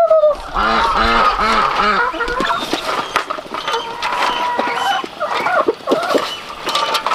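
Domestic chickens clucking as they are fed: a quick run of short repeated calls in the first couple of seconds, then scattered poultry calls.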